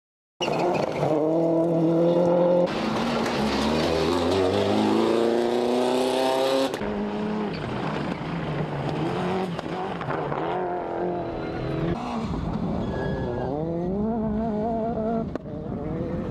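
Rally car engines revving hard under acceleration, their pitch climbing and dropping with gear changes. The sound cuts abruptly from one car to another a few times.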